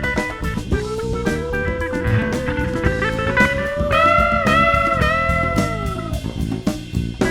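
Live rock band playing an instrumental passage: guitar and drums, with a lead instrument holding one long note that is bent a few times midway before it falls away.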